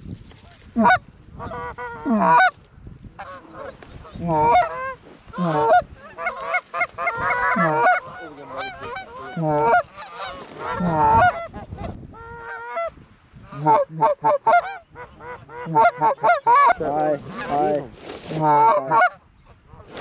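Canada goose calls blown by several hunters: a steady stream of loud honks and clucks, with a short lull a little after the middle. After the lull comes a fast run of clucks as the flock is worked in.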